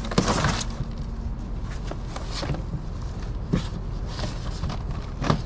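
Cardboard and foam packing being handled while an e-bike is unboxed: scattered rustles, scrapes and knocks, the loudest at the start and near the end, over a steady low rumble.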